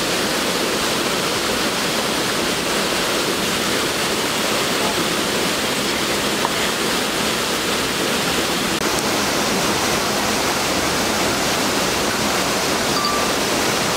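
Steady rushing of river water, a constant full hiss close to the microphone.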